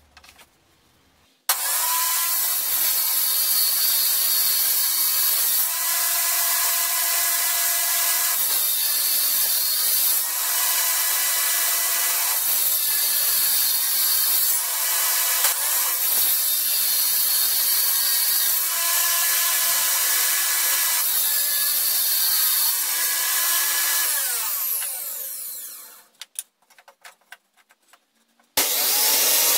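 Benchtop table saw starting about a second and a half in and running with a steady whine while boards are pushed through on a sliding crosscut sled, its tone shifting every couple of seconds as the blade cuts. Near the end it is switched off and winds down, a few knocks follow as the wood is handled, and the saw starts again.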